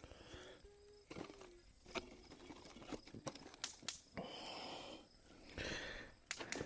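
Faint scattered knocks and snaps of firewood being piled onto a newly lit campfire, with short spells of crackling and hissing from the kindling catching.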